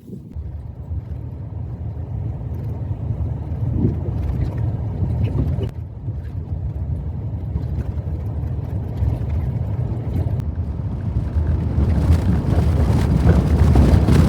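Vehicle driving on a rough dirt road: a steady low rumble of engine and tyres that grows louder near the end.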